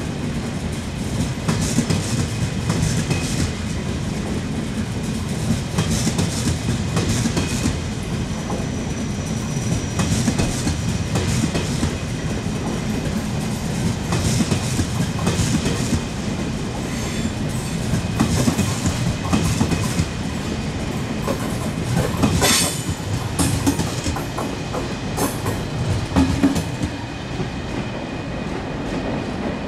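Russian Railways passenger coaches rolling past, with a steady rumble and the regular clickety-clack of wheels over rail joints; one louder sharp metallic sound stands out about two-thirds of the way through.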